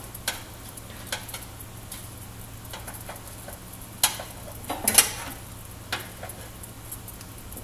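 A utensil clicking against a small stainless steel pot as ramen noodles are stirred: scattered light clicks, the loudest about four and five seconds in, over a steady low hum.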